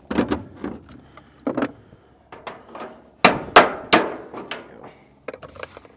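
Wrenches clanking and knocking on the rusty sheet-metal hood of an old engine while a seized bolt is worked loose: a string of irregular metallic knocks, the loudest a little past halfway.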